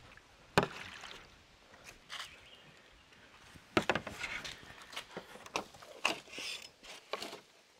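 Bamboo poles being handled and knocking together: a sharp clack about half a second in, a cluster of clacks around four seconds, and a few more knocks later, with rustling of leaves and branches in between.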